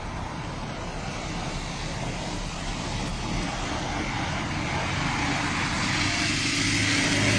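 A motor vehicle drawing near along the wet street, its engine and tyre hiss growing steadily louder toward the end, over a steady rushing noise.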